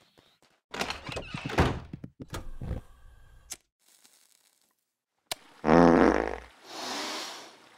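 Cartoon sound effects: a run of thuds and knocks in the first few seconds, a sharp click, then a loud low buzzing blat lasting under a second, followed by a short rush of steady hiss as a white-noise sound machine comes on.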